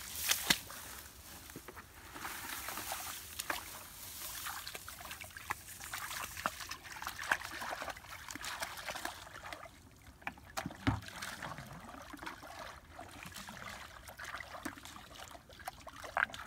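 Shallow muddy water sloshing and trickling, with scattered splashes as people wade through it and dip plastic buckets into it, and one duller knock about eleven seconds in.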